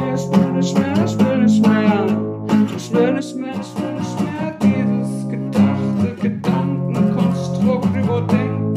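Acoustic guitar played in chords, with a man singing along in a wavering voice.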